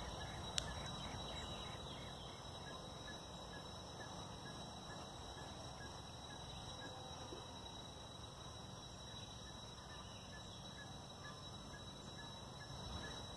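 Quiet outdoor ambience with a steady faint high whine and a faint, evenly spaced ticking. A single sharp click comes about half a second in.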